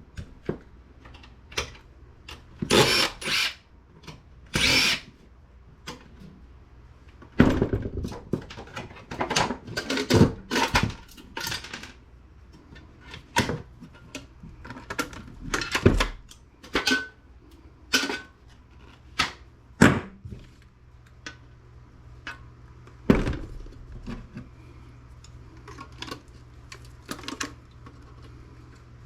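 Short bursts of a power screwdriver among many clicks and knocks of metal and plastic parts, as a desktop computer's parts are unscrewed and pulled apart for scrap.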